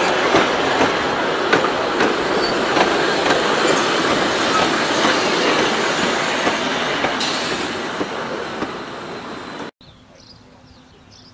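Vintage passenger carriages rolling past, a steady steel-wheel rumble with repeated clicks as the wheels cross rail joints, fading as the last carriage goes by. It cuts off suddenly near the end, leaving a much quieter scene with faint bird chirps.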